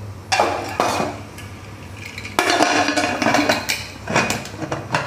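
Aluminium pressure cooker lid clattering and scraping against the pot as it is fitted on and closed. The clanking comes in two bouts, a short one near the start and a longer one in the middle.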